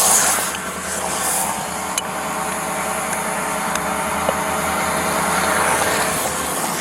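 Motor vehicle engine running steadily under a constant hiss, with a couple of faint ticks.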